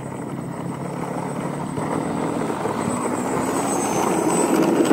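Xfly Twin Nova RC plane's twin electric motors and propellers buzzing as it taxis on the ground, growing steadily louder as it comes closer.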